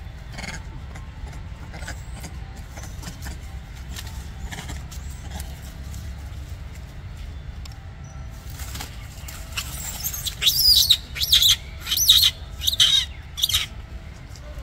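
Young macaque giving a run of about half a dozen short, high-pitched squeals, bending up and down in pitch, over the last six seconds, under a steady low rumble.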